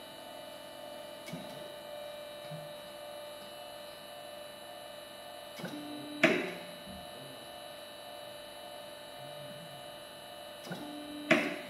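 Hydraulic power unit running with a steady hum while the hydraulic cylinder cycles out and back. Twice, a brief lower drone is followed by a sharp clack from the rig.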